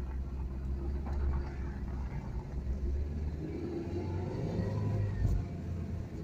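Car interior noise while driving at road speed: a steady low rumble from engine and tyres on the road.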